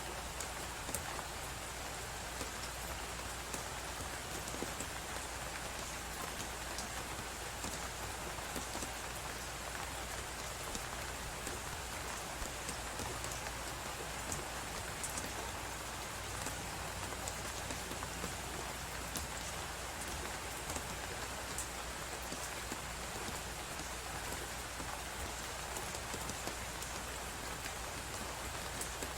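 Fireplace crackling over a steady hiss of snowstorm wind. Frequent small sharp crackles sit on an even, unbroken noise bed that neither rises nor falls.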